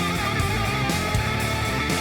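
Background music: rock with guitars and a steady beat.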